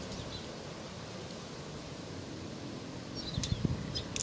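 Wind rumbling on the microphone outdoors, with a few light clicks and knocks near the end as shock-corded tent pole sections are handled and fitted together. A bird chirps faintly just before the clicks.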